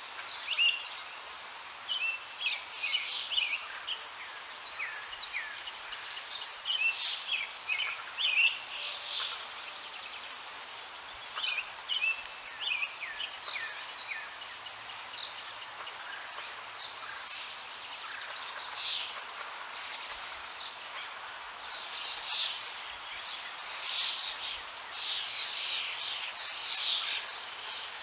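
Several songbirds chirping and singing, many short calls overlapping, busiest near the end, over a steady background hiss.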